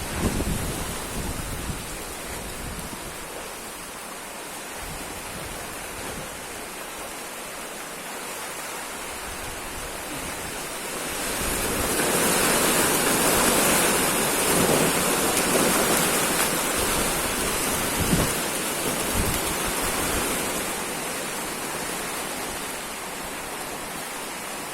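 Strong wind blowing steadily, swelling into a louder gust about halfway through and easing off again, with low rumbling buffets.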